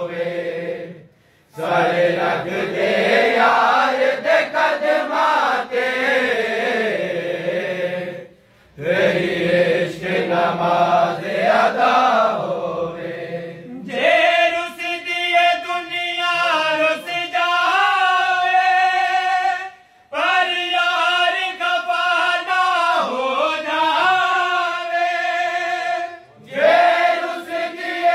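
A group of men singing a Punjabi devotional kalam together without instruments, in long sung phrases broken by short pauses for breath.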